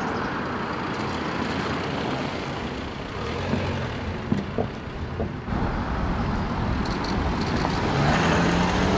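Audi SUVs driving slowly past at close range: steady engine and tyre noise. A low, even engine hum comes in near the end as a second car passes.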